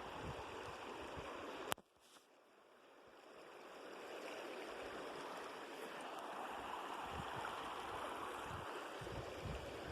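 River water flowing steadily. Just before two seconds in, a sharp click cuts the sound out, and the water fades back in over the next couple of seconds.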